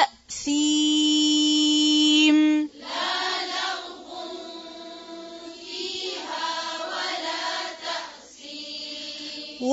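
Quran recitation with tajweed: a woman's voice holds one long drawn-out note for about two seconds. Then a quieter group of voices chants the verse back in unison.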